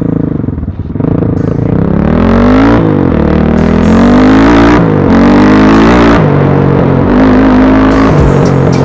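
BSE Z6 enduro motorcycle's engine running under riding, the revs climbing and dropping again and again as the throttle is worked.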